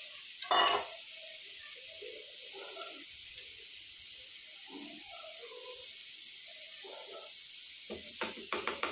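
A wire whisk stirring chopped fruit into whipped curd in a steel bowl, with one loud metal clink about half a second in and a quick run of clinks near the end. A steady hiss runs underneath.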